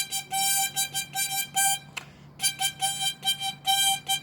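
Small accordion played as a quick string of short notes on the same pitch, with a short break about two seconds in.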